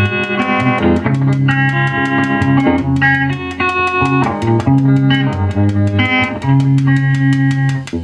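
Electric guitar played through a Fender Vibro King valve combo amp, notes and chords ringing out loud. Under the playing runs an even ticking, several ticks a second, from the amp's vibrato circuit: a fault that could not be cured.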